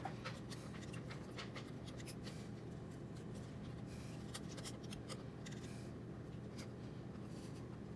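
Hands fiddling with wires and a small plastic plug inside a 3D printer, making irregular light clicks and rubbing, over a steady low hum.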